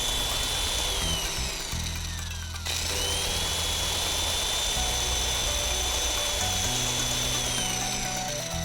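Vacuum cleaner motor sound effect: a high whine winds down, then spins up again about three seconds in, holds steady and winds down near the end. Background music plays underneath.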